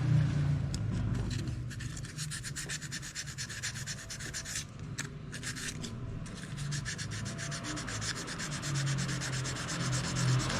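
Rapid back-and-forth abrasive rubbing, many strokes a second, pausing briefly about halfway through: a front brake part of a scooter being scrubbed clean.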